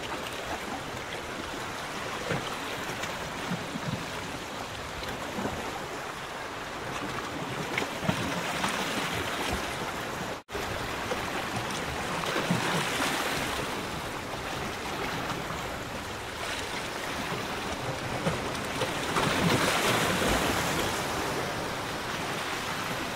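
Small waves on lagoon water lapping and splashing, a steady wash that swells louder every few seconds, broken by a brief dropout about ten seconds in.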